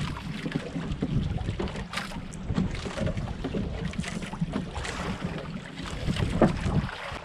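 Wind buffeting the microphone in uneven gusts, over water slapping and knocking against a small outrigger fishing boat at sea, with scattered short knocks.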